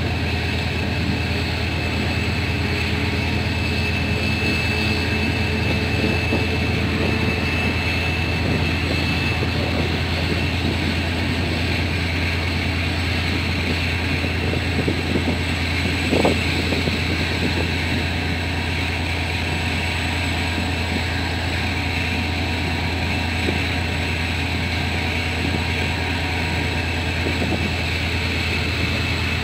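Diesel locomotive hauling a passenger train, its engine running steadily with a deep hum, heard from an open coach window together with the train's running noise. A brief louder sound stands out about sixteen seconds in.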